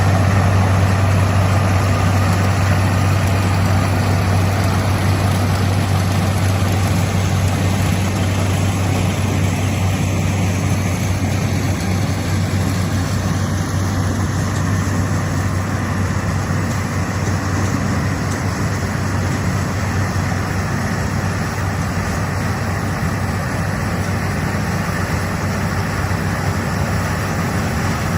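John Deere 9670 combine running steadily while harvesting corn: a constant low engine hum under an even mechanical whir.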